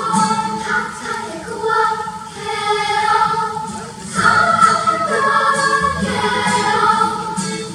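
Children's choir singing in held, changing notes.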